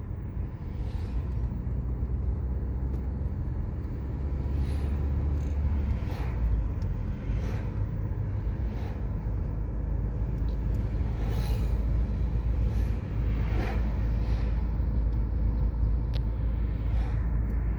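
Sea waves washing and breaking on a beach over a heavy low rumble, with repeated soft surges of hiss.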